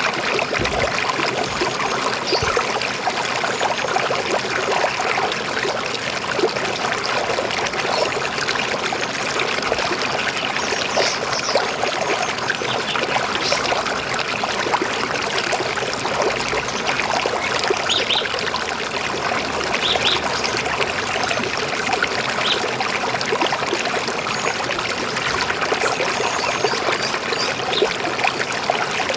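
River water flowing, a steady rushing and trickling.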